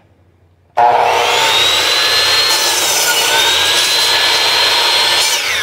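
Electric 10-inch miter saw starting up about a second in with a loud, steady high whine. The whine dips in pitch briefly midway as the factory blade bites into a wooden board under load. Near the end the motor is let go and the whine begins to fall as the blade spins down.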